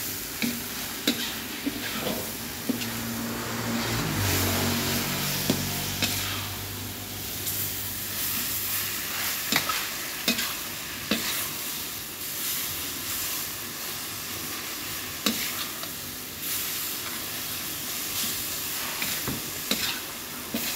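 Beef, bean sprouts and vegetables sizzling in a wok while a metal spatula stirs and tosses them, clicking and scraping against the pan again and again over a steady frying hiss.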